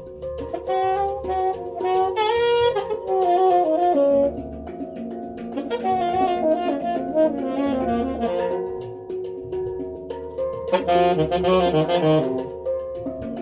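Saxophone improvising a wandering melodic line, loudest and brightest about two seconds in and again near the end, over the long ringing notes of a hang drum.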